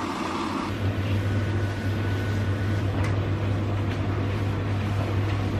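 An electric household appliance running with a steady low hum, setting in under a second in.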